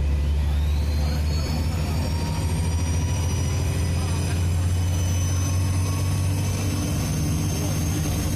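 Dennis Trident 2 double-decker bus engine running under load. Its turbocharger whistle rises in pitch over the first couple of seconds, then holds as a steady high whine over the low engine drone.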